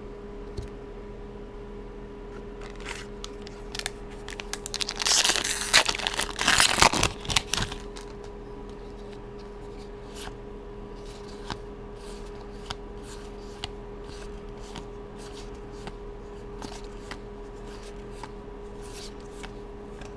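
A Magic: The Gathering foil booster pack wrapper being torn open, a crinkling tear of about three seconds starting some five seconds in, followed by light clicks of the trading cards being slid and flipped against each other in the hands.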